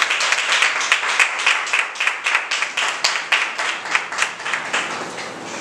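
Congregation applauding, many hands clapping together; the applause thins and dies down near the end.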